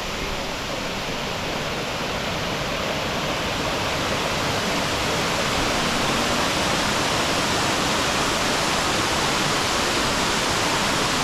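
La Coca Falls waterfall rushing: a steady, dense noise of falling water that grows a little louder over the first few seconds, then holds.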